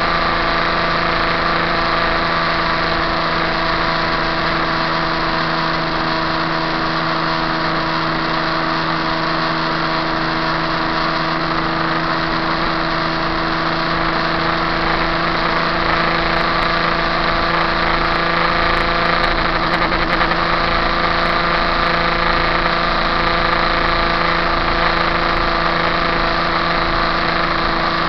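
KTM RC390's single-cylinder engine running flat out at a steady high pitch, the bike held near its top speed of about 185 km/h, over a steady rush of wind and road noise.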